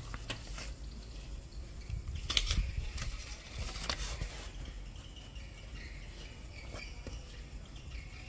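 A sheet of paper being handled and laid down on a desk surface: several short crisp crackles and taps, loudest about two and a half seconds in, settling after about four seconds.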